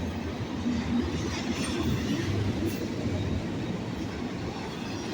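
BNSF freight train passing at speed: a steady rumble of its cars' wheels rolling over the rails.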